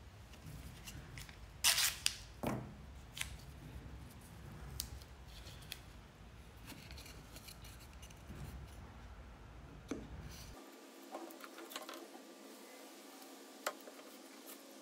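Painter's tape torn from the roll, with two sharp rips about two seconds in, followed by light taps and scrapes as mitred MDF panels are set down on the tape.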